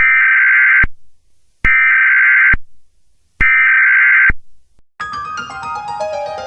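Emergency Alert System SAME digital data tones: three short, loud bursts of warbling two-tone data, about a second apart, signalling the alert's end. Music begins near the end.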